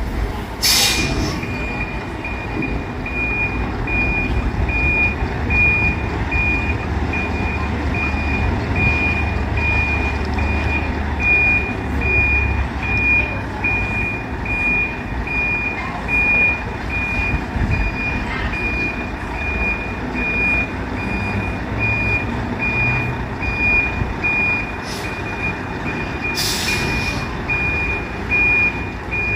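A semi-trailer truck's reversing alarm beeping steadily, about one and a half high beeps a second, over the low running of the truck's engine as it backs up. There is a short hiss about a second in and again near the end.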